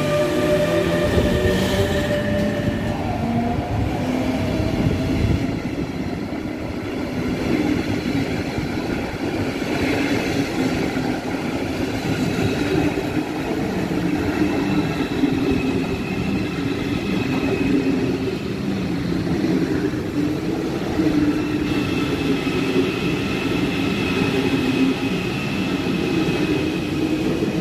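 An ICE high-speed train running past on the platform track: a long, steady rush of wheel and running noise with a low hum. In the first few seconds the whine of an electric locomotive's motors fades out.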